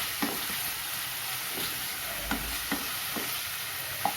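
Small chicken pieces sizzling in hot oil and spice paste in a pan, with a spatula scraping against the pan in several short strokes as they are stirred.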